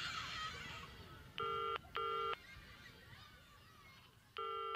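Telephone ringing tone heard down the line, in the British double-ring pattern: a pair of short rings about a second and a half in, and another pair starting just before the end. A wash of noise fades out during the first second.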